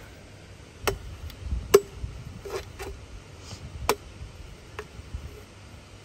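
Machete chopping at the husk of a green jelly coconut to open it: a series of sharp, irregularly spaced chops, the loudest about two seconds in.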